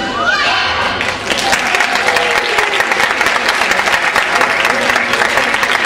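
Audience applauding, dense clapping that builds about a second in as the backing music ends with a short rising glide.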